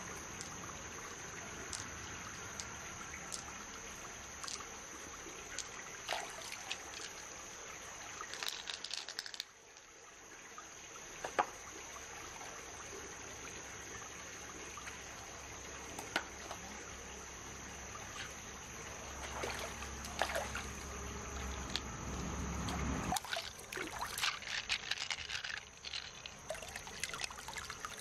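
Shallow stream water trickling and splashing as hands rinse pearls and an opened freshwater mussel shell, with scattered light clicks of pearls and shell being handled.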